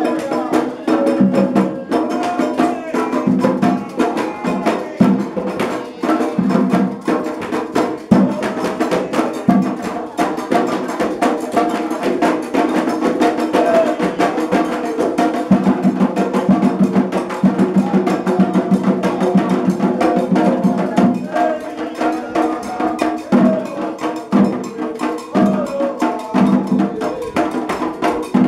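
Afro-Brazilian Candomblé ritual music: drums and a sharp struck percussion keep a dense, steady rhythm while voices sing a chant over them.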